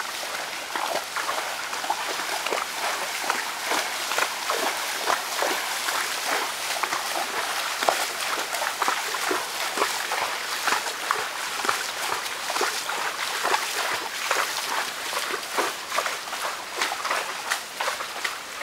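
Horses' hooves splashing through a shallow river: a steady run of irregular sloshing splashes over the sound of flowing water.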